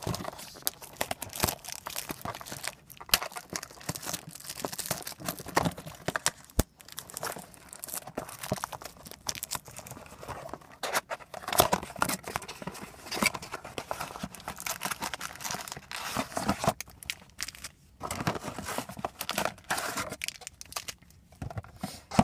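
Plastic shrink wrap being torn and crumpled off a trading-card box: irregular crinkling and crackling, pausing briefly twice near the end.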